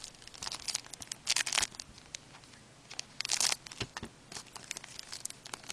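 Foil trading-card pack wrapper crinkling in the hands and being torn open, with two longer, louder bursts about a second and a half and about three seconds in.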